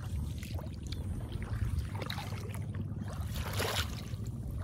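Wind rumbling steadily on the microphone, with a few faint splashes and swishes of shallow muddy water.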